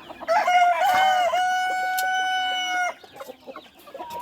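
A rooster crowing once, one long call of about two and a half seconds starting just after the beginning, with hens clucking around it.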